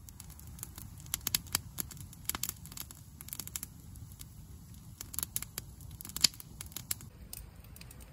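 Wood campfire crackling: irregular sharp pops and snaps over a steady low rumble, the loudest snap about six seconds in.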